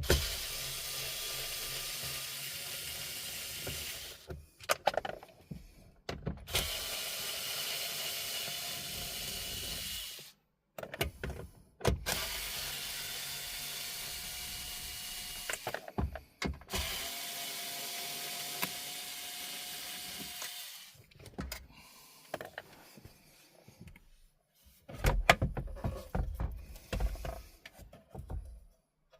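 A small electric motor running in four steady spells of about four seconds each, with a faint whine, separated by clicks; a few clattering knocks near the end.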